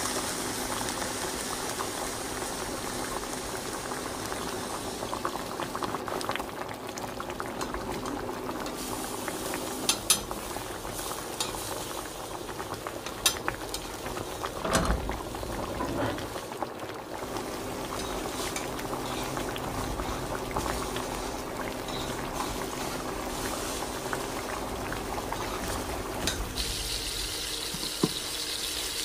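A pot of liquid boiling steadily on the stove, with a few sharp knocks about ten and thirteen to fifteen seconds in. Near the end the bubbling gives way to a steadier, higher hiss.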